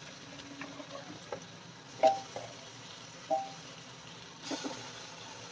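Pieces of goat head and trotters being placed into an aluminium pressure cooker of hot masala: a faint sizzle under two sharp knocks with a brief ring against the pot, about two seconds in and again a little over a second later.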